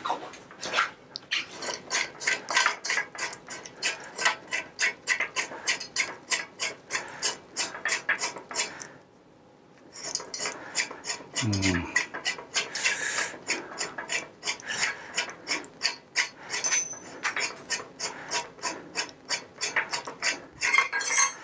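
Rapid ratchet-like clicking, about five clicks a second, from the headset of an old, rusty steel mountain bike frame as the fork is turned in it by hand. The clicking stops for about a second partway through.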